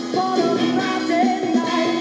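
A vinyl single playing on a 1966 Dansette Transit portable record player: music with a singing voice through its small built-in speaker, thin with little bass.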